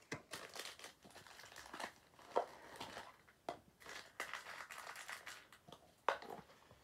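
Packaging crinkling and rustling as it is handled, with a few sharper crackles. The loudest is about six seconds in.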